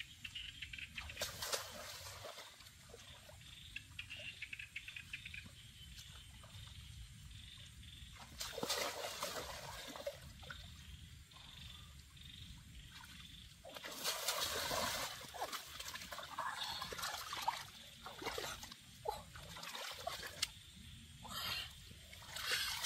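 Water trickling and splashing in several separate bursts a few seconds apart, the longest about two-thirds of the way through.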